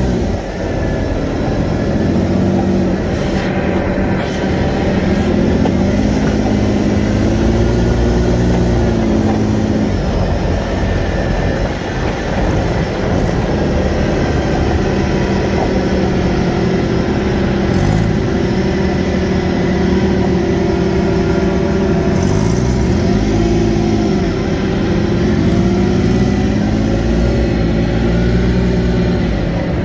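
Polaris side-by-side's engine running under way, its pitch rising and falling over a few seconds at a time as it speeds up and eases off, over a steady rushing noise.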